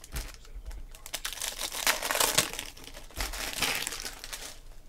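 Foil trading-card pack wrappers crinkling as they are handled, in several bursts.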